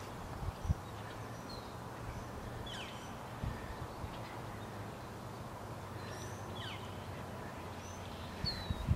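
Open-air site ambience: a steady low hum with a few short, high, falling bird chirps scattered through it, and a few soft thumps, the loudest a little under a second in and another near the end.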